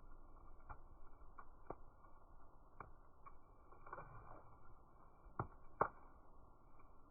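Wood fire crackling faintly: scattered sharp pops and snaps at irregular intervals, with two louder snaps close together toward the end.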